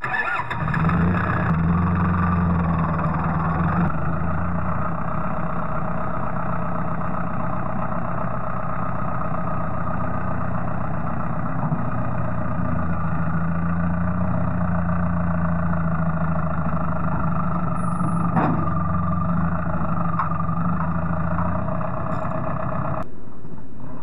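Compact tractor's diesel engine starting, then running steadily while the tractor is driven into position, and switched off about a second before the end.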